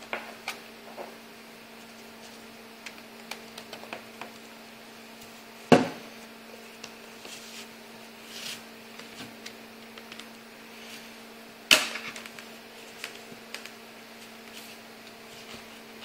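Small screwdriver scraping and tapping against a Lenovo IdeaPad S10-3s netbook's plastic case, pushing the keyboard free from underneath, with scattered light clicks and two loud sharp clicks about six and twelve seconds in.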